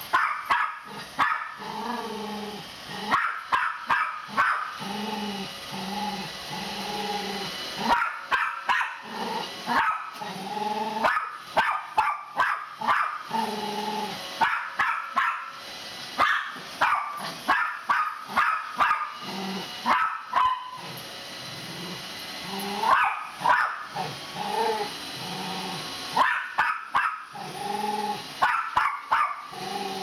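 Miniature pinscher barking at a robot vacuum in repeated bursts of sharp barks, with lower, drawn-out growling between the bursts.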